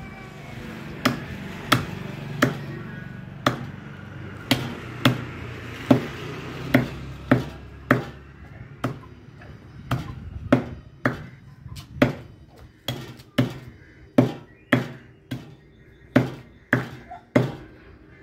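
Heavy cleaver chopping a country chicken into bone-in pieces on a wooden chopping block: sharp chops in a quick, slightly uneven rhythm of about two a second, with a brief pause about halfway through.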